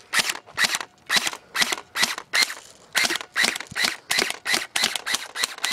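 Crosman Nightstalker electric airsoft rifle firing single shots in quick succession on semi-automatic, about three a second, with a short pause about halfway.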